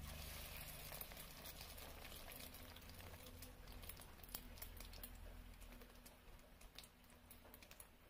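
Soybean pakoras deep-frying in hot oil in a wok: a faint sizzle with many scattered crackles and pops, strongest just after fresh batter goes in and dying down a little toward the end.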